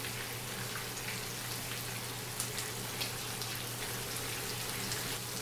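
Chicken leg pieces sizzling in hot oil in a pan on an induction cooktop, a steady hiss with scattered small crackles and pops. A steady low hum runs underneath.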